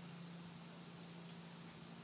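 Quiet background with a faint steady hum and a faint tick about halfway through.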